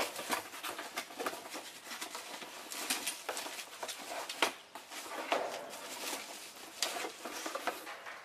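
Cardboard box and packaging being handled: irregular rustling with scattered light taps and clicks.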